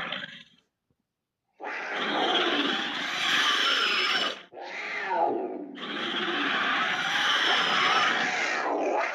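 Made-up dinosaur creature roar sound effect: after a second of silence, a long roar, then a short call falling in pitch, then a second long roar.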